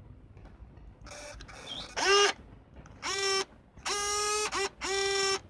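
Pentax Espio 140M compact film camera's lens zoom motor whirring in several short stop-start runs, each a steady high-pitched whine; the first, about two seconds in, starts with a quick rise in pitch and is the loudest. A softer whirring noise comes about a second in.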